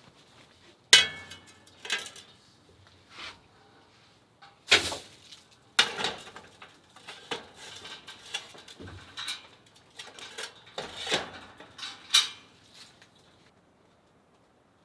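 Cookware and cutlery clattering: an irregular series of clinks and knocks, the sharpest about a second in, then falling quiet near the end.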